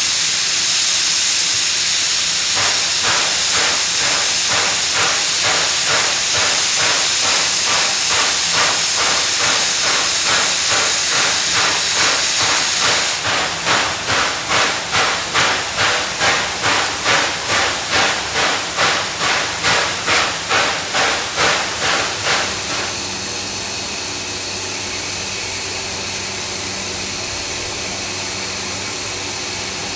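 Steam locomotive blowing steam: a steady hiss that turns into rhythmic puffing at about two puffs a second. The puffing grows sharper midway and stops about 22 seconds in, leaving a steadier hiss with a low hum.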